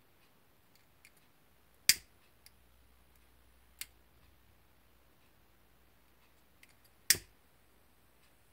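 A disposable lighter struck twice, about five seconds apart, with a fainter click between, to singe the cut ends of the fishing line on a beaded ring.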